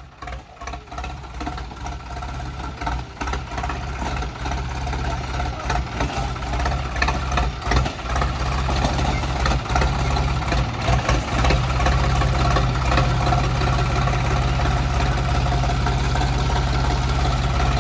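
Sonalika DI 35 tractor's diesel engine running, uneven and knocking at first while it grows louder, then settling into a steady, loud run about twelve seconds in.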